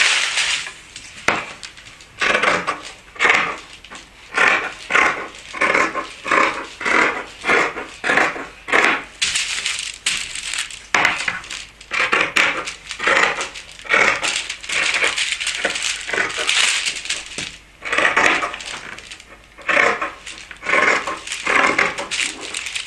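Dressmaking scissors cutting through fabric in a steady run of snips, about one and a half a second, with a few short pauses between runs.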